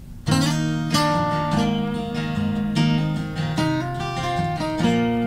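Two acoustic guitars strumming and picking chords together, coming in sharply about a third of a second in as the song's intro.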